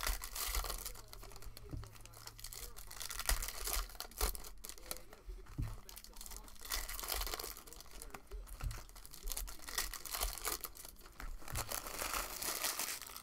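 Foil trading-card pack wrappers being crinkled and torn open by hand, in a run of crackly rustling broken by small clicks and snaps.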